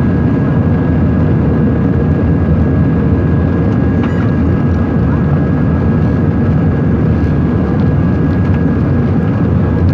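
Steady engine and airflow noise inside the cabin of an Airbus A320 airliner in flight, with a faint high steady tone above it.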